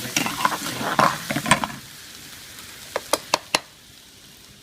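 Butter chicken gravy with chicken pieces sizzling in a hot pan while being stirred, busy and crackling for the first couple of seconds, then quieter. Three sharp taps come quickly one after another a little after three seconds in.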